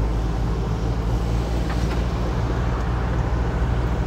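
VW 8-150 Delivery light truck's diesel engine running steadily while driving, with road and tyre noise, heard from inside the cab.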